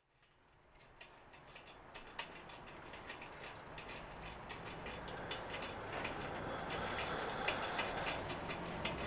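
Irregular mechanical clicking and ticking over a low hum, fading in from silence and growing steadily louder.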